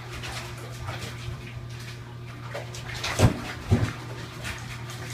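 Water sloshing and splashing as a husky puppy is bathed in a tub, with two heavy thumps a half second apart about three seconds in, over a steady low hum.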